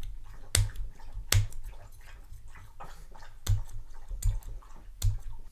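Hands working on a fingerboard: small sharp clicks and scratches at irregular intervals, about five louder ones, with low bumps beneath. The griptape over the truck bolt holes is being pierced with a SIM-eject pin and the truck fitted.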